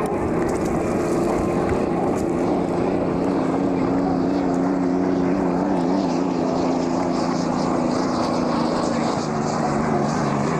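Unlimited hydroplane race boats running at speed, a loud steady engine drone that falls gradually in pitch over the last few seconds as they go by.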